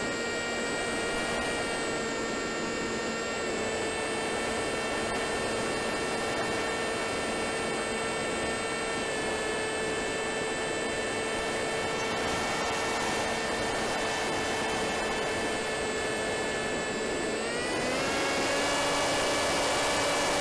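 Wing Wing Z-84 flying wing's electric motor and propeller, heard from an onboard camera: a steady whine over wind rush. About three seconds before the end the whine rises in pitch and grows louder as the throttle opens.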